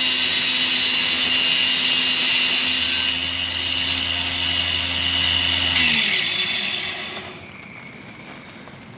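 Angle grinder running with its disc on a small metal piece: a loud steady hiss over the motor's whine. About six seconds in it is switched off and the motor winds down, falling in pitch, the sound dying away by about seven seconds.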